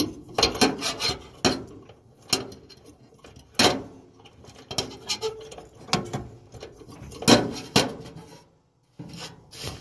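Irregular metallic clicks, clanks and knocks of dryer parts being handled as the idler pulley assembly is worked loose and pulled off, with a brief dead gap near the end.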